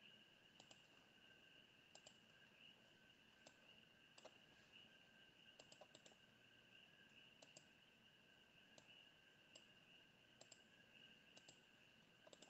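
Faint computer mouse clicks, a dozen or so at uneven intervals, some in quick pairs.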